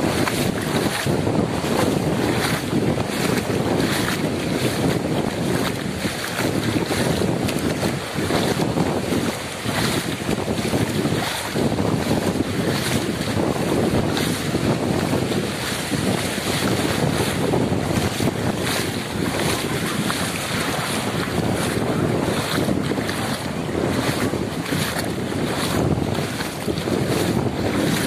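Wind buffeting the microphone over the steady wash of sea surf, with bare feet splashing through shallow water at a walking pace.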